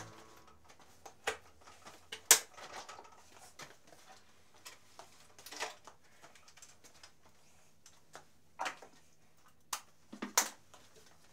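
Scattered knocks and clatter from wooden boards and gear being handled on a workshop bench, the sharpest knock about two seconds in and a short cluster near the end, over a faint low steady hum.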